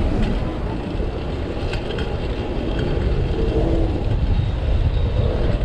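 Steady low rumble of wind buffeting the microphone, mixed with street traffic noise, as heard from a bicycle moving through city traffic. A few faint clicks come about two seconds in.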